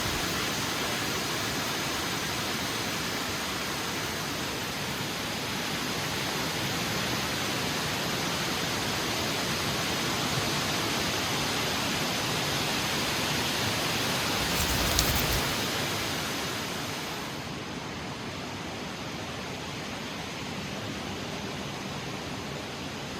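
Heavy wind rushing in a steady roar of noise, with a short stronger gust about two-thirds of the way in, after which it eases to a quieter, duller rush.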